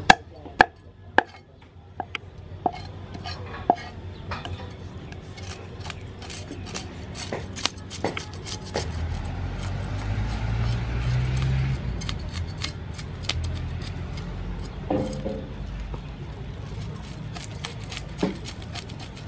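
A cleaver scraping the scales off a whole fish on a wooden chopping board: quick repeated scraping strokes, with several sharp knocks of the blade against the board in the first few seconds. A low rumble swells in the background midway.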